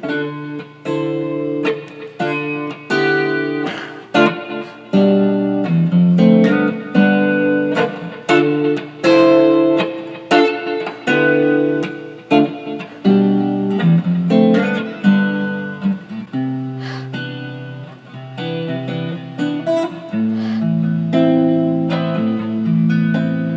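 Guitar music: a continuous run of picked notes and chords, each note struck sharply and dying away.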